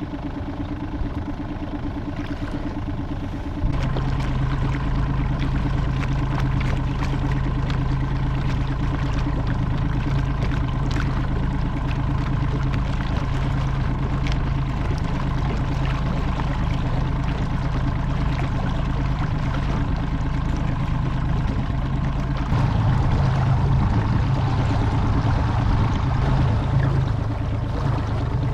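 Small boat's outboard motor running steadily under way, with water rushing past the hull. The engine gets louder about four seconds in and again near the end as the throttle is opened further.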